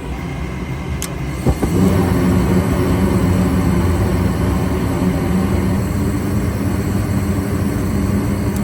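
Gas furnace's draft inducer motor running with a steady hum. About a second and a half in there is a click and a soft thump as the burners light, and the running sound gets louder and stays steady: the furnace is firing and holding its flame on a freshly cleaned flame sensor.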